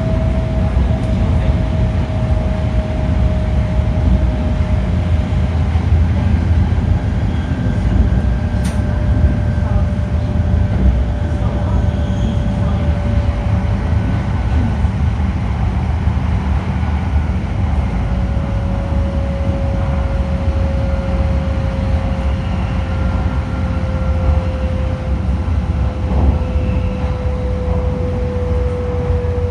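Running noise inside an E5 series Shinkansen motor car at speed: a steady rumble of wheels and track under the whine of its IGBT VVVF inverter and traction motors, the inverter believed to be Toshiba-made. The whine slides slowly and smoothly down in pitch.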